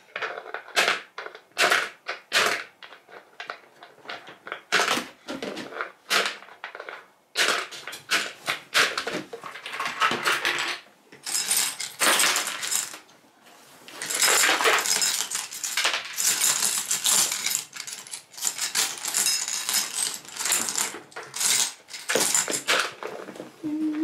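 Small pebbles and shells clicking and clattering as they are dropped into a plastic bottle. Scattered clicks at first, then a dense rattling clatter through most of the second half.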